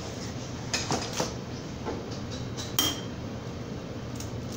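A few light knocks and clinks on a glass mixing bowl. The sharpest comes about three seconds in and leaves a brief glassy ring: an egg being cracked against the bowl.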